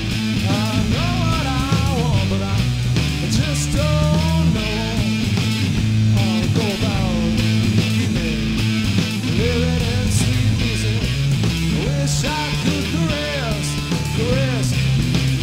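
Live rock band playing: a Stratocaster-style electric guitar, bass guitar and drum kit, amplified, with a melody line that bends and wavers in pitch over a steady, pulsing bass and drums.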